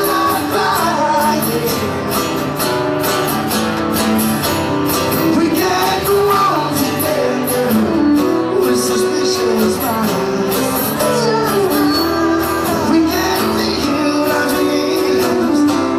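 Live acoustic country music: several acoustic guitars strummed in a steady rhythm, with a male voice singing.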